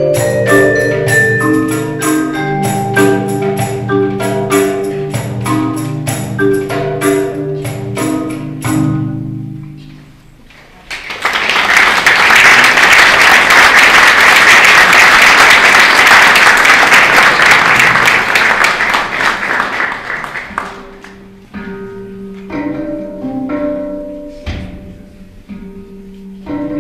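A mallet percussion ensemble of marimba and vibraphone with cajon plays the last bars of a piece, which rings out about nine seconds in. An audience then applauds for about ten seconds. Near the end, a handpan begins a slow solo of ringing notes.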